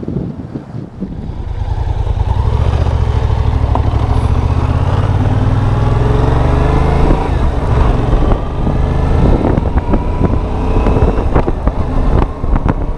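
Yamaha FZ-07's 689 cc parallel-twin engine accelerating hard, getting loud about a second and a half in. Its pitch climbs, drops at a gear change about seven seconds in, then climbs again.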